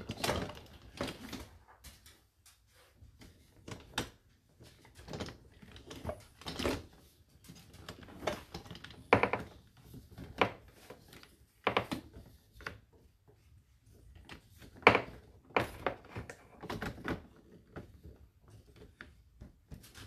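Whirlpool dishwasher running its wash, with irregular knocks and clicks coming a few times a second and louder ones about every second or two. A few of them ring briefly, like dishes clinking.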